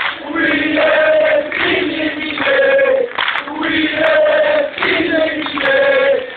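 Dense crowd of football supporters chanting a song in unison, many voices singing short repeated phrases with brief gaps between them.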